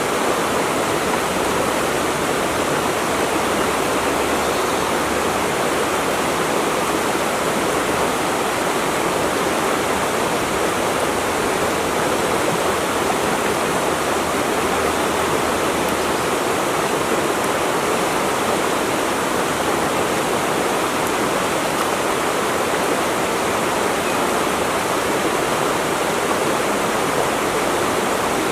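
Running water rushing steadily without a break, an even, unchanging wash of sound.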